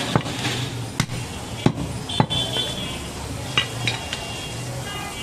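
Heavy butcher's knife chopping goat meat on a wooden log chopping block: sharp single chops spaced about half a second to a second apart, with two lighter knocks later on.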